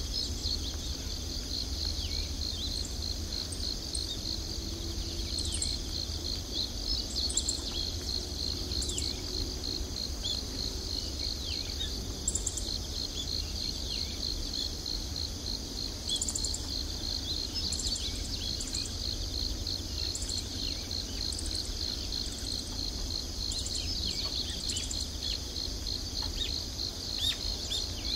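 Outdoor insect chorus: a steady, fast-pulsing high trill, with short high bird chirps and small falling calls scattered through it. A low rumble runs underneath.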